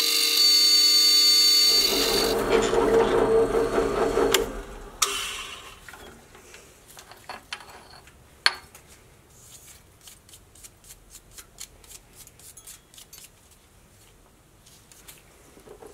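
Benchtop drill press running with a steady whine, which stops about two seconds in and gives way to a rough rumble that dies out a couple of seconds later. After that come light metal clicks and taps from the vise being loosened and the drilled aluminium bar lifted out, with one sharp knock about halfway through.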